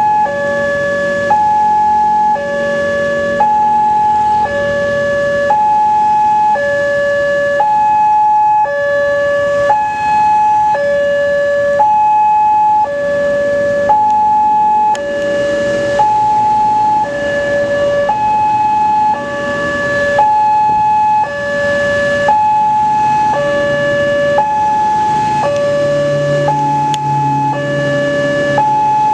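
Railway level-crossing warning alarm sounding its electronic two-tone hi-lo signal, each tone about a second long, warning that a train is approaching. A low engine rumble joins near the end.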